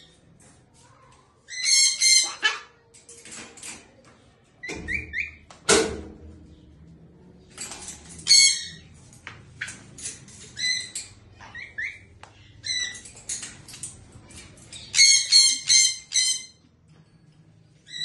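Sulphur-crested cockatoo giving short, harsh squawks in clusters, with a quick run of four near the end. A knock or two is heard as it clambers on its cage.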